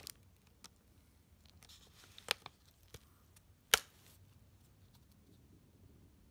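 A few sharp clicks and taps of small hard parts being handled, the loudest about three and three-quarter seconds in, with a quiet room between them.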